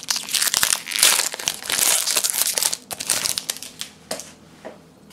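Foil wrapper of a Magic 2012 booster pack crinkling as it is opened by hand. The crinkling is dense for the first three seconds, then dies down to a few scattered crackles.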